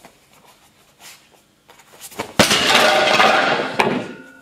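A side kick cracks through a stack of breaking boards held in a stand, about halfway in. The broken board pieces clatter down onto the mat for about a second and a half, with a second sharp knock near the end.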